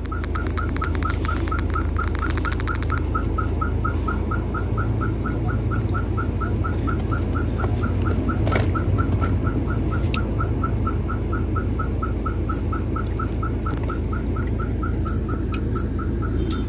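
A short high chirp repeating evenly about four times a second without a break, over a steady low hum of a car's engine heard from inside the cabin.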